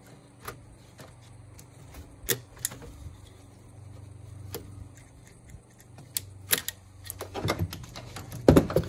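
Plastic wiring connector of a NOx sensor clicking and rattling as it is handled and worked free of its clip. Separate sharp clicks come every second or two, then a quicker run of clicks and rattles near the end.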